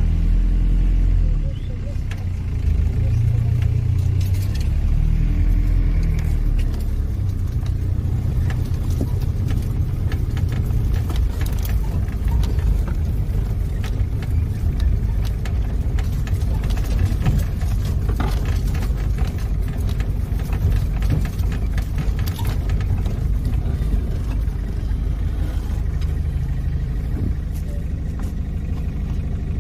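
Engine and road noise from inside the cab of an off-road vehicle driving slowly over rough field, with many loose rattles and knocks as it jolts along. The engine level dips briefly about a second and a half in.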